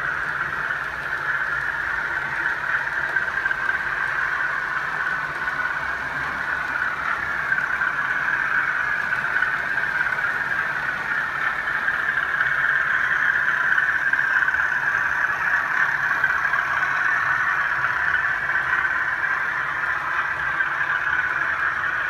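Model trains running on a model railway layout: a steady whirring hiss of motors and wheels on the rails, which grows a little louder towards the middle as a model HST passes close by.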